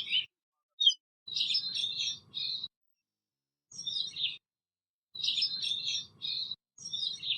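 Asian glossy starlings chirping in short bursts of high, rapid notes, about five bursts with silent gaps between them.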